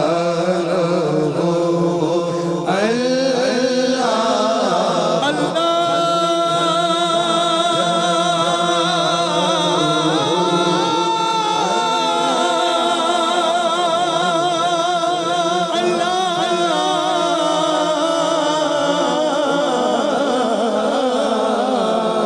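Devotional Urdu vocal music, a hamd praising God: layered voices hold long, wavering notes with no beat.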